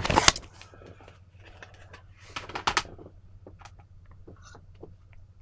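Light clicks and taps of a handheld mini vise and a digital scale being handled, the loudest pair about two and a half seconds in.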